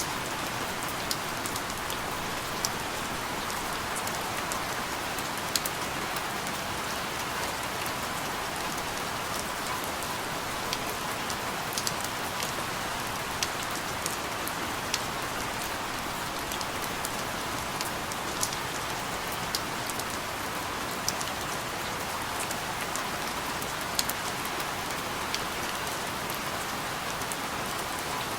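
Steady rain falling, an even hiss with scattered sharper drop ticks every second or so.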